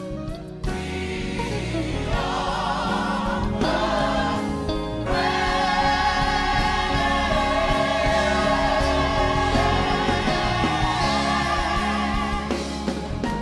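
Gospel choir singing with musical backing, the held notes wavering with vibrato; the sound swells louder about five seconds in.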